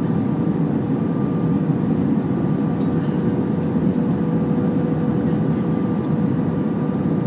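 Airbus A320 cabin noise on approach: a steady rush of engine and airflow noise over the extended flaps, with a faint constant whine at a fixed pitch.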